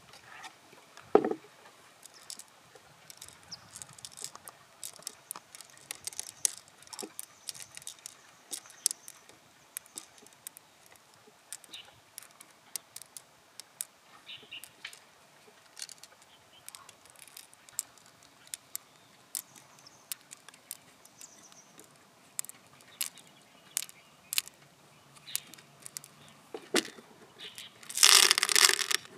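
Loose pearls clicking as they are picked out of an opened mussel and dropped one by one into a mussel-shell dish, with one louder knock about a second in. Just before the end, a handful of pearls is tipped into the shell and rattles loudly for about a second.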